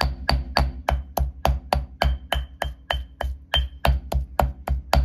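Stone pestle pounding garlic, chilies and onion in a stone mortar: steady thuds of stone on stone through the mashed ingredients, about four a second. This is curry paste being pounded fine.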